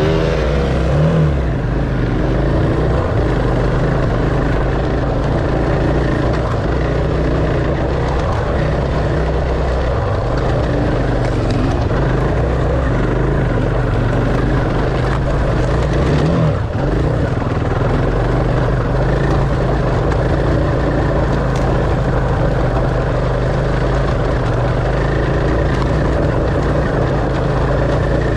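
A steady, loud engine drone that holds nearly the same pitch throughout, with no revving.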